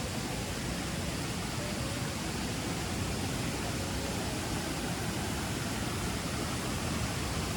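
Steady rush of cascading water from a jungle waterfall, an even noise that does not change.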